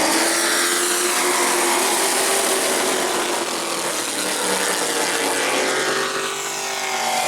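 Pack of short-track race trucks accelerating at full throttle on a green-flag restart, several engines running together, their pitch rising slightly early on.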